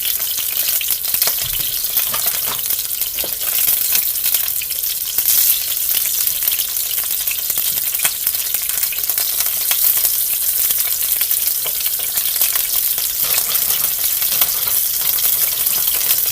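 Chicken potstickers frying in hot oil in a skillet: a steady high sizzle dotted with small crackling pops.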